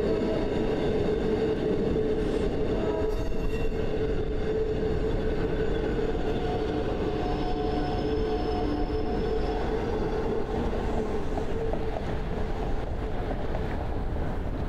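South Shore Line electric commuter train running, a steady rumble with several held humming tones that fade and return.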